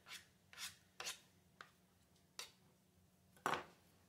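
A serving spoon scraping and knocking against a pot in about six short strokes, scooping out the last of the pie filling, with the loudest knock near the end.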